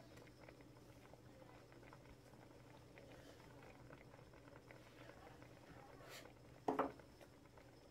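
Pot of chicken broth and dumplings simmering softly, with faint scattered bubbling pops and ticks. Near the end comes one brief, much louder knock with a short ring.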